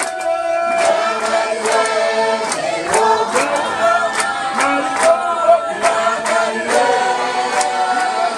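Congregation singing a hymn together unaccompanied, with hand claps keeping a steady beat about twice a second.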